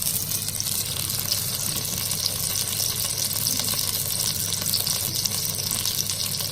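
Tuna steak sizzling in shallow oil in a wok over a low flame: a steady crackling hiss.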